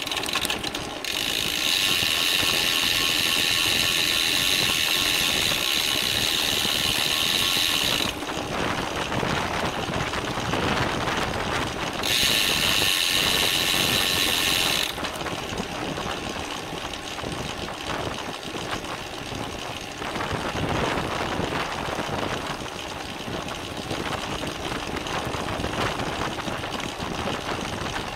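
A bicycle's rear freehub clicking in a fast, high buzz while the rider coasts, for about seven seconds near the start and again for about three seconds in the middle. Between and after these, steady wind and tyre noise from riding.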